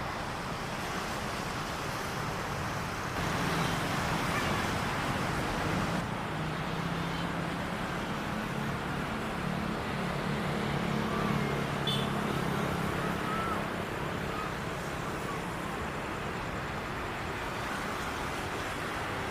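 Steady rumble of engines and traffic, with a low engine hum that grows louder about three seconds in and eases off after about fourteen seconds.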